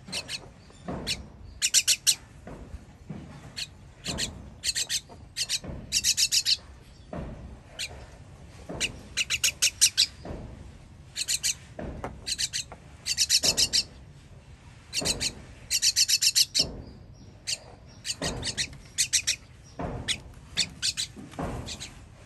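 Baby bird begging to be fed: short bursts of rapid, high-pitched chirps, repeated every second or two.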